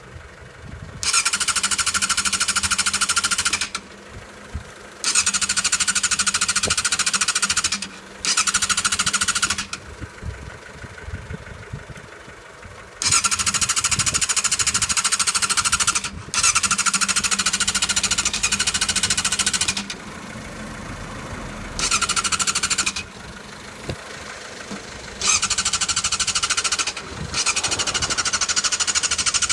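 Yamaha YZF600R's electric starter cranking the engine in about eight separate tries of one to three seconds each. Each try is a fast, buzzing rattle, and the engine never catches: the bike won't start.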